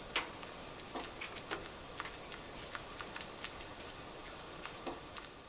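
Wood fire crackling inside a homemade wood stove: irregular pops and snaps, a few each second, over a faint hiss.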